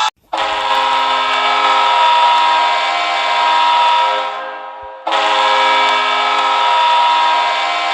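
Kansas City Mavericks hockey goal horn: a loud multi-note horn blast that fades out about four seconds in, then after a short gap a second long blast starts and is still sounding at the end.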